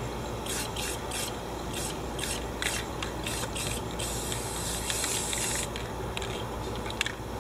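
Aerosol spray paint can giving a string of short hissing spurts, then one longer spray of about a second and a half about four seconds in, and a last short spurt near the end.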